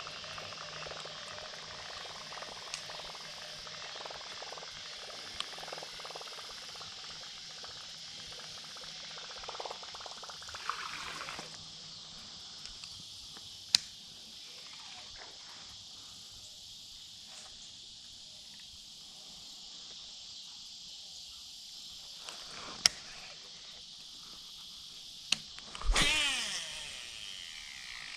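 Steady high-pitched chorus of evening insects, with a few sharp clicks and a brief louder whirring sound near the end.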